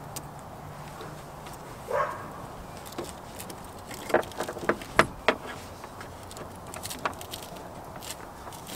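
Scattered clicks and light knocks of metal hose clamps and a rubber hose being handled and pushed onto a truck's transmission cooler line, with a cluster of sharp clicks about four to five seconds in and a short muffled sound about two seconds in.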